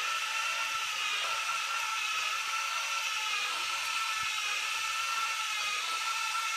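Homemade Raspberry Pi robot vacuum cleaner running, its motors whirring steadily as it drives across a tile floor. The whir holds a steady high whine with no change in pitch.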